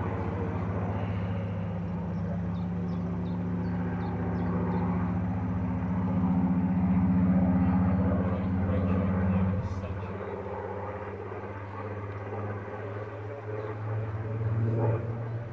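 Spitfire PR Mk XIX's Rolls-Royce Griffon V12 engine droning as the aircraft flies over. The drone builds to its loudest and drops off suddenly about nine and a half seconds in, leaving a lower hum that swells again near the end.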